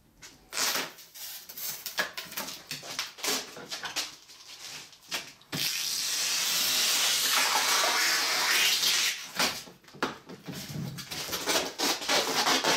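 Utility knife blade scraping along the freshly cut edge of a plexiglass (acrylic) sheet to smooth it: a run of short scraping strokes, then one long steady scrape about halfway through, then more short strokes near the end.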